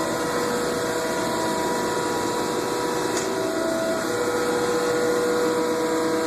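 Thompson surface grinder running: a steady machine whir with several held hum tones, one of which shifts a little past the middle.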